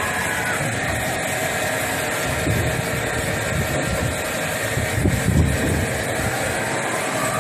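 1992 Okuma LB-25 CNC lathe running, spindle turning the workpiece while the turret tool cuts under coolant spray: a steady machine noise, with a few low thumps about five seconds in.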